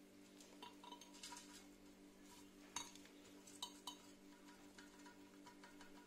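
Several light clinks against a large glass jar, the clearest three around the middle, as a gloved hand wearing metal bangles works potting soil inside it. A faint steady hum runs underneath.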